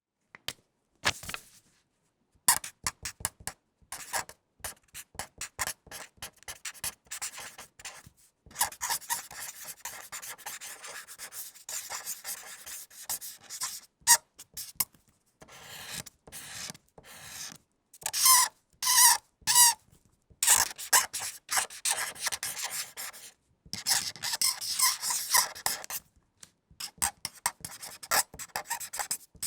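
Felt-tip marker writing on paper: many short squeaky, scratchy strokes with brief pauses between them. A few strokes about 18 to 20 seconds in have a clear pitched squeak.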